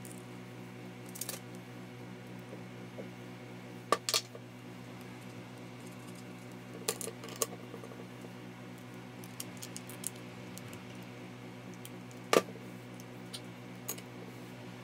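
Metal parts of a Makita M693D impact driver clinking and tapping as they are handled and set down during reassembly: scattered sharp clicks, the loudest a pair about four seconds in and one about twelve seconds in, over a steady low hum.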